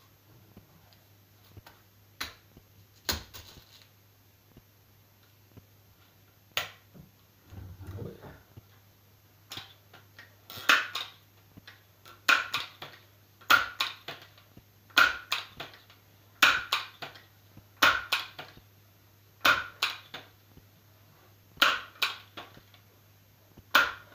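Crosman Legacy 1000 multi-pump pneumatic air rifle being pumped up to charge it for a shot: about nine stiff pump strokes, roughly one every second and a half, each a short clatter of the lever. Before the pumping there are a few separate clicks of the action as a pellet is loaded.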